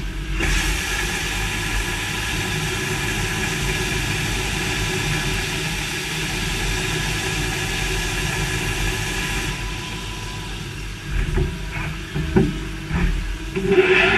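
Machinery in a machining cell running steadily, a hum with several held whining tones over a hiss. The hiss drops away about nine seconds in, and a few short clanks follow.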